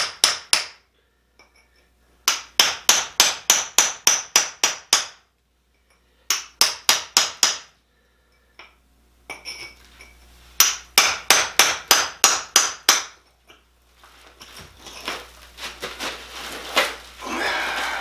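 Hand hammer striking a steel masonry chisel driven into a lump of zeolite-bearing basalt, in runs of sharp metallic blows about four a second, with short pauses between runs. Near the end the blows give way to irregular lighter knocks and scraping as the rock splits apart.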